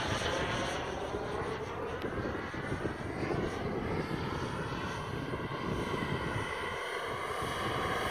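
Jet engine of a Saab Viggen flying past at a distance: a steady rushing jet sound with slowly shifting whining tones, beginning to swell near the end as the aircraft comes back toward the listener.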